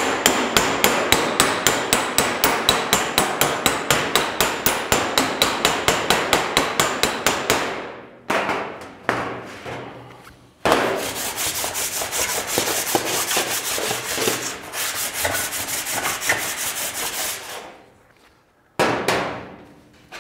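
Panel hammer striking a steel car bonnet over a flat dolly, in rapid runs of about five sharp metallic blows a second. This is hammer-and-dolly work to bring low spots up. A few scattered blows and a pause of a couple of seconds split the first run from the second, and the hammering stops near the end.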